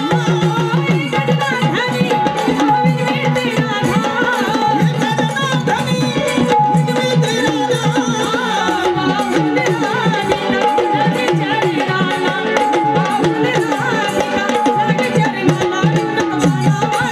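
Live Marathi folk song (gavlan) with drums keeping a busy beat, singing amplified through microphones, and a steady held note underneath.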